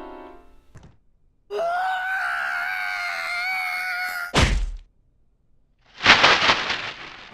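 Cartoon zombie voice effects: a wavering, high-pitched moan held for about three seconds, cut off by a loud thump, then after a short silence a sharp noisy burst that fades over about a second.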